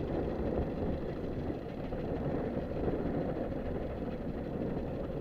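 Fishing boat's engine idling as a steady low rumble, mixed with strong wind buffeting the microphone.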